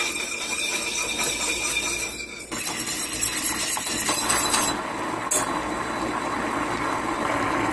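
A metal wire whisk scraping and clinking around a small stainless steel saucepan, stirring sugar and water together on the burner. In the second half the stirring gives way to a steady hiss.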